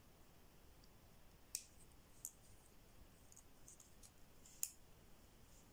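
Faint, light clicks and taps from a small flashlight stun gun being handled and turned over in the hands, with three sharper clicks among them.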